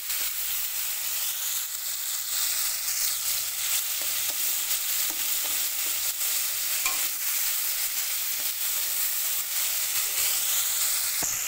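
Chopped tomatoes sizzling steadily in hot oil in a metal kadai, with a metal spatula stirring them and now and then clicking and scraping against the pan, as the tomatoes fry down with salt.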